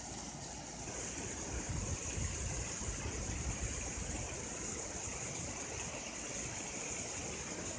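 Steady rush of water pouring down a rock dam spillway. It grows louder with a low, unsteady rumble about a second in.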